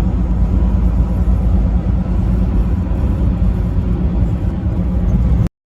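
Truck driving at road speed: a steady low rumble of engine and road noise that cuts off suddenly near the end.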